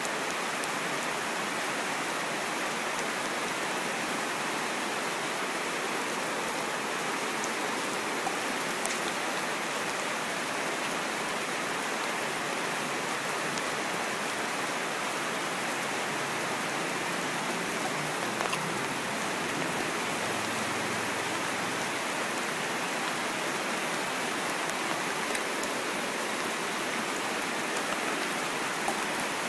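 Heavy rain pouring down onto wet paving, a steady, unbroken hiss of falling rain and splashing water.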